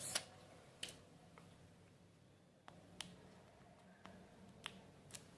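Plastic protective wrapping being peeled off a smartphone: faint, scattered crackles and sharp clicks at irregular intervals, the loudest right at the start.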